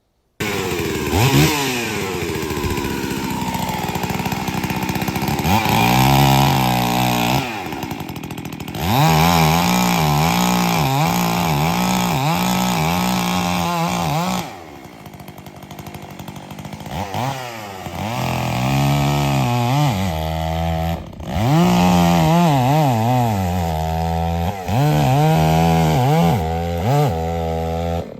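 Gas chainsaw running and cutting wood, its engine pitch sagging under load and climbing back again and again, with a quieter stretch just past the middle before it revs up again.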